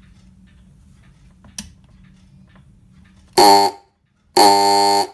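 A Soviet electric horn blaring in loud buzzing blasts: a short one a little after three seconds in, then a longer one of under a second near the end. A click about a second and a half in, over a low steady hum.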